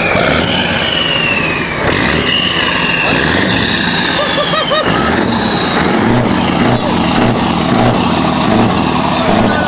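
Scania 143M V8 diesel truck engine running steadily through a straight-piped (open) exhaust with three stainless tips: a loud, even, deep rumble.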